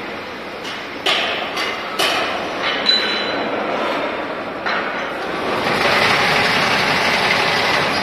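Steady mechanical clatter of braiding machines running, with several sharp metallic clanks from about a second in as parts inside the machine's guide ring are handled.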